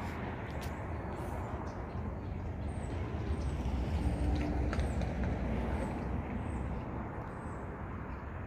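Outdoor background noise: a steady low rumble that swells a little in the middle, with faint short high chirps now and then.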